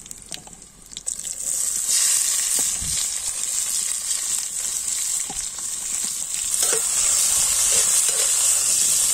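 Sliced onions sizzling in hot oil in a kadai, with a perforated metal ladle clicking and scraping as they are tipped in and stirred. The sizzle turns loud and steady about two seconds in, as the onions hit the oil.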